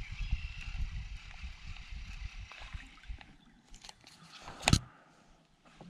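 Baitcasting rod and reel being handled and cast from an inflatable raft. Low rumbling knocks come from movement in the raft, then light ticks and one loud, sharp click about three-quarters of the way in.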